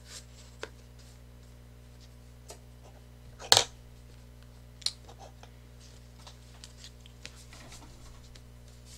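Tangram pieces being handled and set down on a board: scattered light taps and clicks, with one sharp knock about three and a half seconds in and a smaller one a second later, over a steady low hum.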